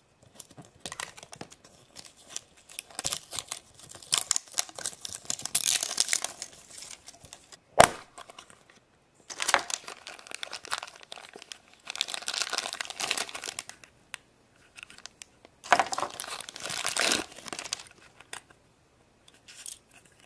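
Plastic wrapping crinkling and tearing in on-and-off bursts as a plastic toy capsule is opened and its plastic-bagged contents handled, with one sharp click about eight seconds in.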